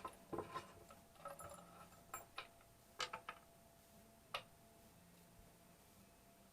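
Faint, scattered light clicks and knocks, about eight of them in the first four and a half seconds, spaced irregularly.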